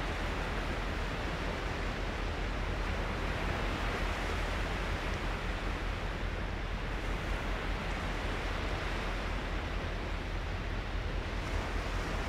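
Steady rushing noise with a low rumble underneath and no changes.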